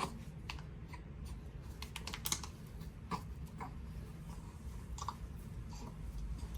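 Sparse, irregular light clicks and taps, a dozen or so spread unevenly, over a low steady hum.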